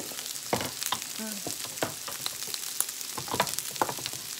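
Garlic fried rice sizzling in a hot stainless steel wok, a steady hiss. Over it come scattered sharp knocks, some ringing briefly, from a knife chopping scrambled egg on a wooden board.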